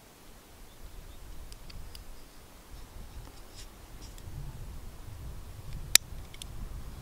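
Folding knife being handled and its blade swung open: faint small metal clicks, then one sharp click about six seconds in as the blade snaps into its open, locked position.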